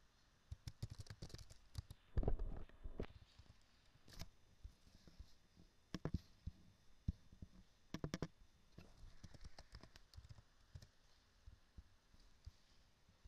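Computer keyboard keystrokes and mouse clicks in scattered clusters, with a louder dull thump about two seconds in.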